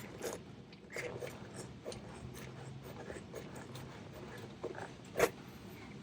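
Scattered light clicks and scrapes of the air-box mounting bolts being tightened by hand onto rubber washers, with one sharper click about five seconds in.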